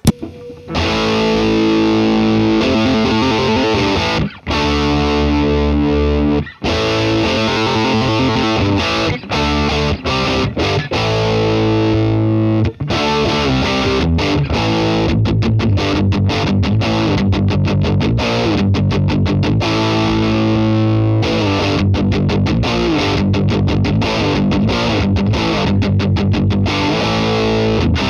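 Distorted electric guitar played through a Love Bomb tube preamp pedal with its drive turned up. Held chords and riffs come first; from about halfway it switches to short, choppy chord stabs with quick stops between them.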